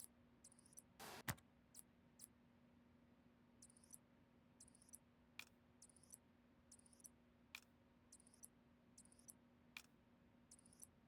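Faint clicks and snaps of computer hardware being handled, with a short rustle ending in one sharper click about a second in, then scattered light ticks over a low steady hum.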